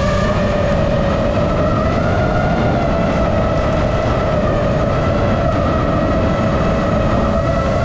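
iFlight Nazgul5 FPV quadcopter's motors whining at a fairly steady pitch, shifting slightly with throttle, over heavy wind rush on the onboard GoPro's microphone.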